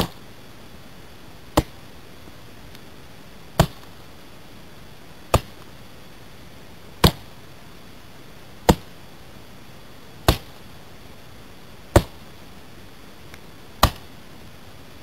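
A series of about nine sharp knocks, evenly spaced roughly one every second and a half to two seconds, over a steady background hiss.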